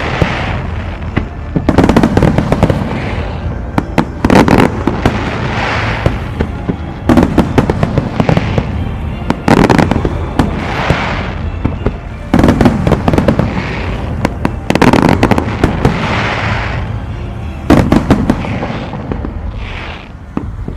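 Fireworks display: aerial shells bursting in volleys, a cluster of sharp bangs about every two to three seconds, each followed by a crackling, hissing tail. The volleys ease off near the end.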